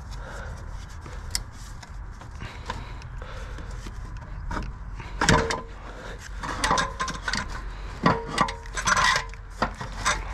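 Factory exhaust downpipe being worked loose and shifted around under the car: irregular knocks, clanks and scraping of the pipe against surrounding parts, with the loudest knocks about halfway through and again near the end, where there is also a short ringing squeak.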